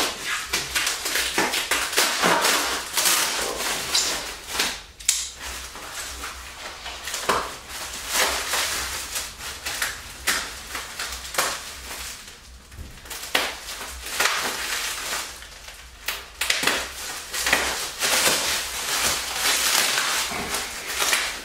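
Plastic packaging wrap crinkling, crackling and tearing as it is cut and pulled off a new seat, in irregular rustles and crackles throughout.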